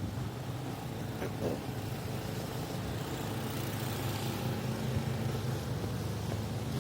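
A motor vehicle's engine running steadily, a low drone.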